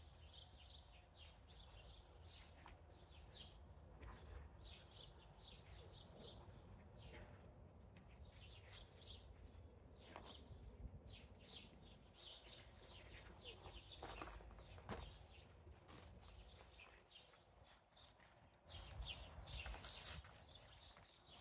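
Faint birdsong: many short, high chirps from small birds, with a few soft knocks now and then.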